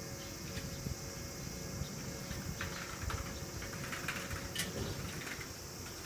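Street ambience: a steady low rumble and hum under a faint high hiss, with a few light clicks between about two and a half and five seconds in.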